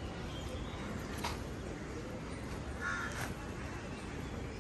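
A single short, harsh caw from a bird about three seconds in, over a steady outdoor background hiss.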